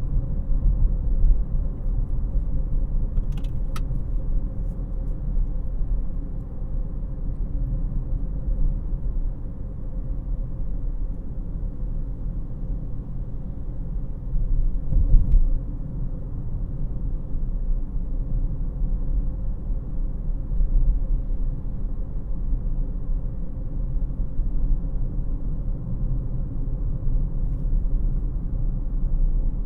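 Cabin noise inside a 2018 Honda CR-V LX on the move: a steady low rumble of engine and tyre noise. A brief louder bump comes about halfway through.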